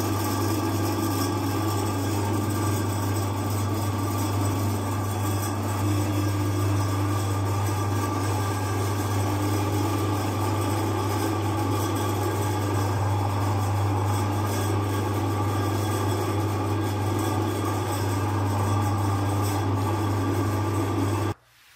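Electric meat grinder running steadily with a deep motor hum as it grinds macarons and ice cream through its cutting plate. The hum cuts off abruptly near the end.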